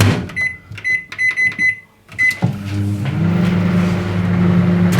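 An 800-watt microwave oven: the door shuts with a thump, the keypad gives a quick run of short high beeps as the time is set, and about two and a half seconds in the oven starts running with a steady hum.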